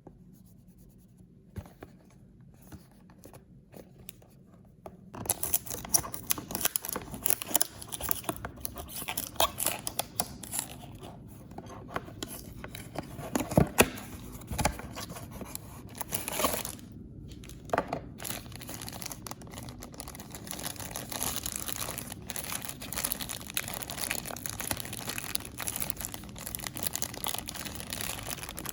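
Toy packaging being torn open and crinkled by hand, with a few faint handling clicks at first and continuous crackling tearing from about five seconds in, including several sharper rips in the middle.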